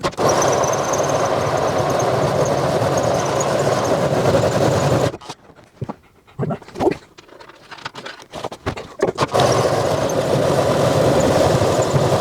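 Power drill boring into the Ford Transit's steel bulkhead, running steadily for about five seconds, stopping for a few seconds of scattered knocks, then running again near the end. The steel is very hard.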